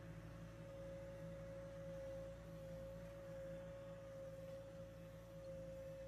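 JCB backhoe loader's diesel engine running, heard from inside the cab: a low steady hum with a steady high-pitched whine over it.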